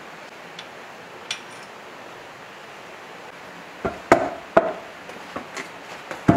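Heavy diesel engine block tipped and shifted on a concrete floor: a few faint metal clicks, then from about four seconds in a run of knocks and scrapes, the loudest knock near the end.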